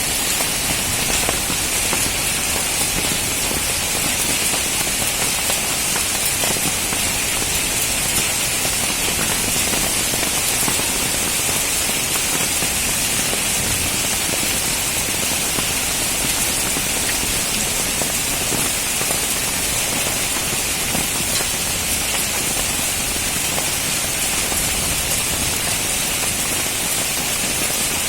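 Steady heavy rain pouring down, a dense even hiss full of fine drop ticks.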